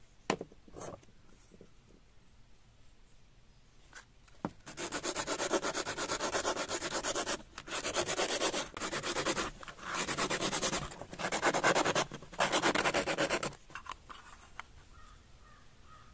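Sandpaper rubbed rapidly back and forth inside a dry coconut shell half, smoothing its inner surface, in several runs of quick strokes with short pauses between them. A light knock sounds just after the start.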